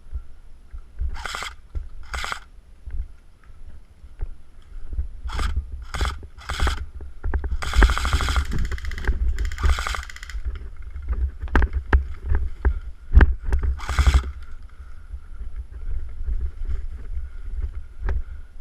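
Airsoft electric replica rifles firing short bursts of rapid clicks, with a longer run of fire in the middle and single shots after it. Steady wind and handling rumble on a body-worn action camera runs under it.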